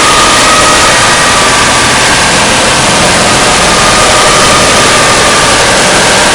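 Jump-scare sound effect: loud, steady, harsh static-like noise with faint wavering tones on top.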